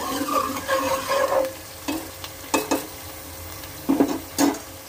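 Sliced onions and curry leaves frying in hot oil in a pot, a steady sizzle as they are browned for a tadka. A ladle stirs them, scraping and knocking against the pot several times.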